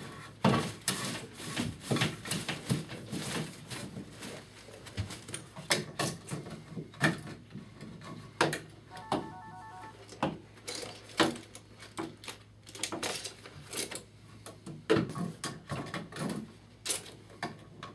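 Fish tape and 14-2 electrical cable being pulled up through a wall cavity into a switch box, making irregular scraping, rubbing and clicking noises as the tape and cable drag against the box and the inside of the wall.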